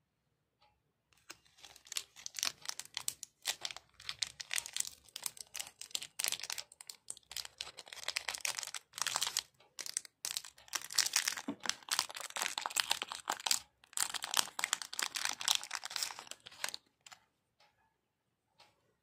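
A foil-lined plastic candy-bar wrapper crinkling and tearing as it is peeled open by hand. It is a dense run of crackles with short pauses, starting about a second in and stopping a couple of seconds before the end.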